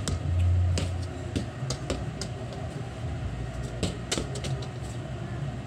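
Football being kicked and bouncing on concrete: irregular sharp knocks, over a low rumble that swells briefly near the start.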